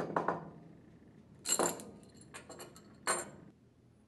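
A few sharp knocks and metallic clinks of hand tools and small steel parts: a soft-headed hammer and a spanner wrench being handled and the lock nut and lock washer worked off the shaft of a Viking internal gear pump. The first knock comes at the start with quick rattling repeats, then single clinks about a second and a half in and near three seconds, with lighter clicks between.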